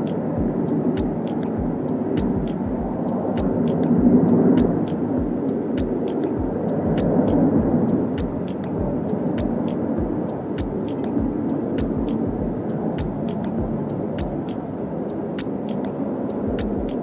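Aircraft engines rumbling, swelling about four seconds in and again about seven seconds in, under background music with a steady beat of sharp clicks and low thumps.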